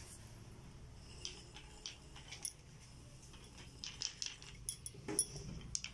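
Small wooden pull toy dragged by its thread across a tiled floor, its wooden wheels and parts giving faint, irregular light clicks and taps that grow busier in the second half.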